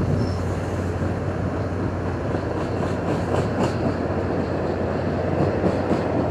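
Train cars rolling past on the rails with a steady low rumble.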